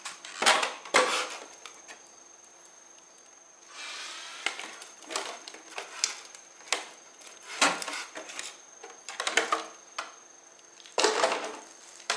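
Hard plastic knocks, clicks and rubbing from handling a Tamiya TGX 1/8 nitro RC car: it is set down onto a cup stand and its body shell is unclipped and lifted off the chassis. Two sharp knocks come near the start, then scattered clicks and a short scrape.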